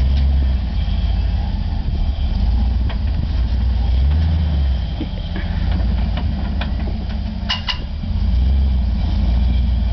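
Rock-crawling off-road vehicle's engine running low and slow, swelling and easing as it is throttled up over rock ledges. A few sharp clicks or knocks, two close together near the end.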